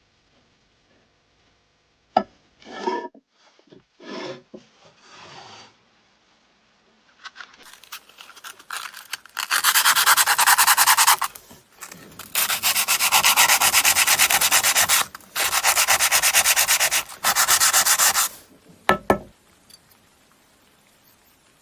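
Abrasive sanding on a knife being restored, in several long, loud passes of a second or two each with brief pauses between them. A few lighter scrapes come before, and a short knock follows near the end.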